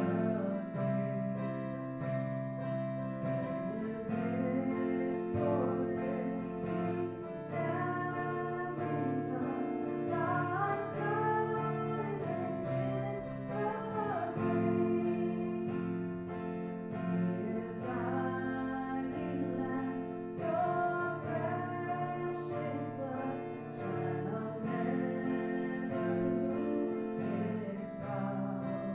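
Worship music: singing over plucked and strummed guitar, played steadily throughout.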